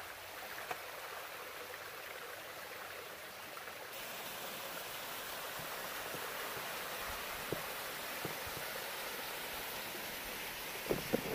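Shallow mountain creek running over a mossy rock ledge, a steady rush of water that gets louder about four seconds in. A few light knocks come near the end.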